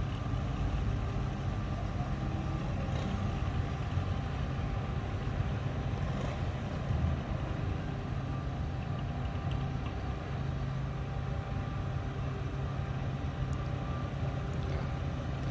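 Diesel tractor engine running steadily, a low even drone with no sharp changes.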